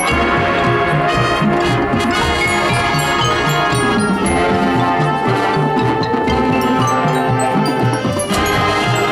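Marching band playing its field show: sustained brass chords over percussion, with a steady low beat.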